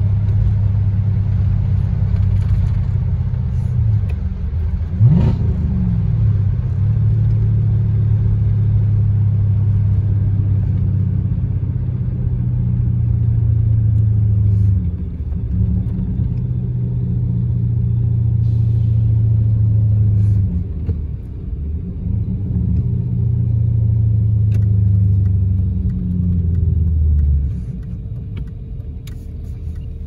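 BMW E39 540i's 4.4-litre V8 running through hollowed-out catalytic converters and deleted resonators: a steady, loud, low exhaust drone as the car is driven. There is a quick sharp rising whine about five seconds in, and the drone eases off briefly a few times, most markedly near the end.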